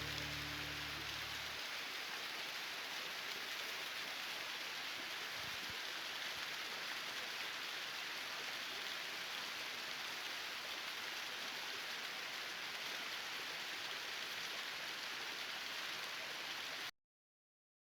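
Steady hiss of water, continuing after low music notes fade out in the first second or two; it cuts off suddenly to silence about a second before the end.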